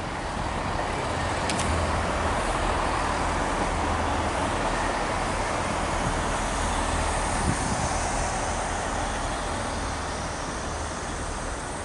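GWR diesel multiple unit running past at a platform: a steady engine hum under the rumble of its wheels on the rails, easing off slightly near the end.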